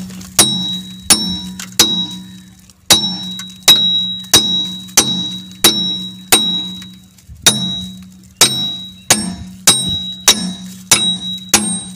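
Repeated hammer blows on the iron cage wheel clamped to a tractor's rear wheel, each a sharp metal clang that rings on, about one every two-thirds of a second with a brief pause about seven seconds in. The blows are knocking the cage wheel loose so it can be taken off the tractor wheel.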